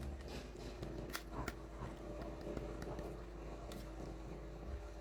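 Small plastic toy pieces being handled, giving a few sharp light clicks and taps over a faint steady hum.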